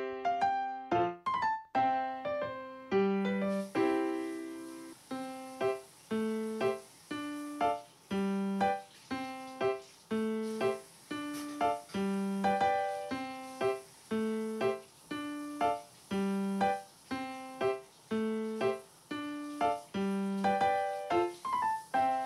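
Background piano music: a gentle melody of single notes and chords struck at an even, unhurried pace.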